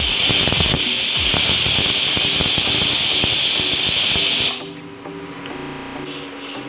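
Pressure cooker whistle: steam jetting from the weight valve of a 3-litre aluminium Pigeon induction-base pressure cooker in a loud steady hiss, the first whistle, showing the cooker has come up to pressure. The hiss cuts off suddenly about four and a half seconds in.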